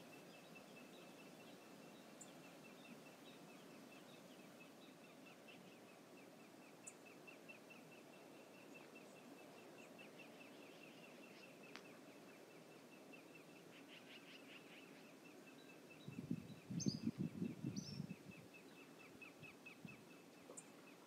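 Faint outdoor ambience at a riverside wildlife camera: a low steady wash of flowing water and a fast, faint ticking that runs on. About three-quarters of the way through, a louder rough low noise lasts for about two seconds, with a couple of short high bird chirps over it.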